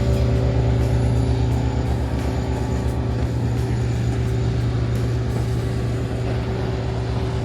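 A vehicle engine running steadily with a low, throbbing hum.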